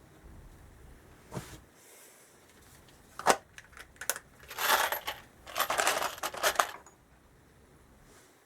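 Small metal parts clinking: a few sharp clicks, then two spells of jingling clatter, like loose screws or bolts being handled and shaken.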